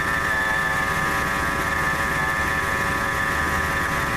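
1997 Ford F-150 engine idling with a steady high-pitched whine from the belt-driven accessory pulleys. The owner takes the whine for a bearing going bad in the idler pulley.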